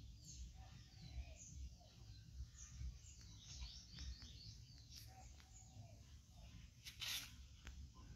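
Faint bird chirping: a run of short, high chirps over a low rumble, with a brief rustle about seven seconds in.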